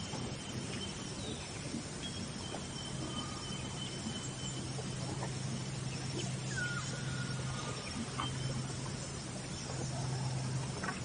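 Steady outdoor ambience with a low hum underneath and a few faint, short bird chirps, one of them about six and a half seconds in.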